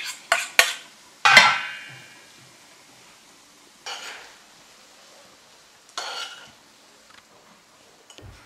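Metal spoon tapping and scraping couscous out of a stainless steel pot onto a plate: a few sharp taps, then a loud ringing clank about a second in. Later come two softer scrapes as vegetables are served out of a frying pan.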